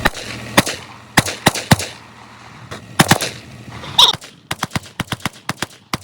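Firearm shots at a shooting range: several single shots spaced irregularly, then a quick string of about a dozen shots at roughly three or four a second in the second half.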